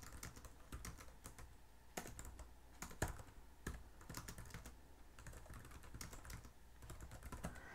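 Faint typing on a computer keyboard: a fast, irregular run of key clicks, with a few harder strokes standing out.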